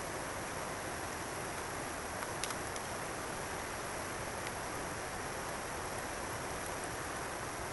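A steady, even rushing noise, with a couple of faint clicks about two and a half seconds in.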